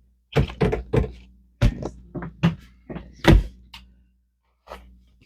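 Cardboard Lego advent calendar being handled and its day's door pushed open: a run of sharp knocks and taps, the loudest about three seconds in.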